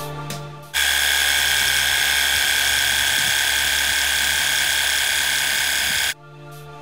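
Pressure washer running, its water jet spraying onto a heap of loose soil: a loud steady hiss with a high whine. It starts abruptly about a second in and cuts off suddenly near the end.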